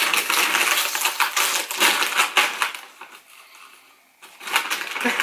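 A plastic crisp packet of Turtle Chips crinkling and crackling as it is handled and pulled open for about three seconds, then rustling again near the end as a hand reaches into the bag.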